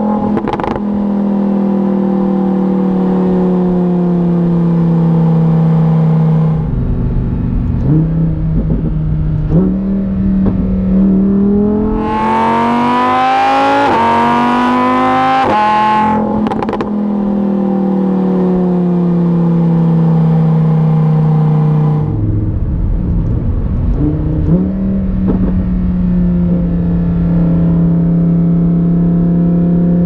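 2018 Lamborghini Huracan Performante's 5.2-litre V10 heard at the exhaust while driving. It cruises with a steady note that slowly falls, and goes through two stretches of rough low rumbling with sharp pops, about seven and twenty-two seconds in. Between them, from about ten seconds in, it accelerates hard with a steeply rising pitch that drops at an upshift about sixteen seconds in.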